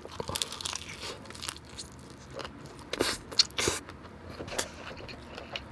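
Biting into and chewing a crispy fried birria taco tortilla close to the microphone: a run of small crunches, with a few louder ones about three seconds in.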